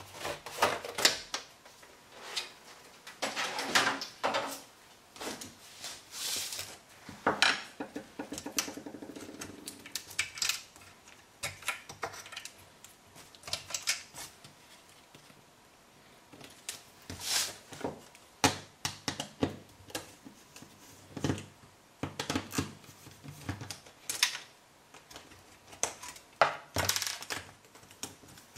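Irregular clicks, knocks and clatter of plastic and metal parts as an LG 22LD310 LED TV is taken apart: the plastic back cover is handled and screws in the metal chassis are undone with a hand screwdriver. A short rattling buzz comes about eight seconds in.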